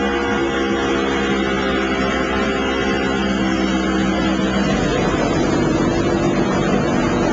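Motorboat engine running steadily while underway, a constant even drone over a rush of noise.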